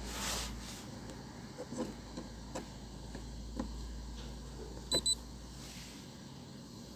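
A low steady rumble with scattered faint clicks and knocks. Two quick high-pitched electronic beeps come about five seconds in, and the rumble stops near the end.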